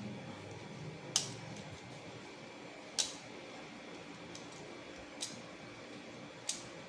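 Four sharp clicks, spaced a second or two apart, over faint steady room noise: a utility cutter and a length of stranded wire being handled while stripping insulation.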